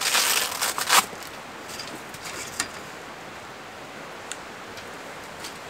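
Rustle and rattle of a vehicle awning's fabric and frame being handled, ending in a sharp click about a second in. After that, a few faint ticks as the awning's support pole is set in the ground.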